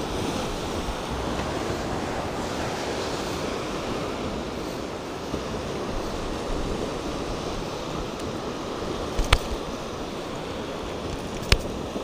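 Ocean surf washing on the beach, a steady rush, with wind on the microphone. Two sharp clicks stand out, one about nine seconds in and one near the end.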